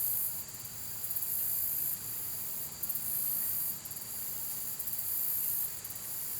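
Steady white-noise hiss with a faint high whine. The very top of the hiss swells and drops irregularly, about every second or so.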